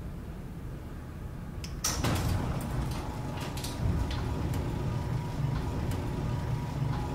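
A low rumble with scattered clicks and rattles, starting suddenly about two seconds in after a quieter hiss; a faint steady tone comes in near the end.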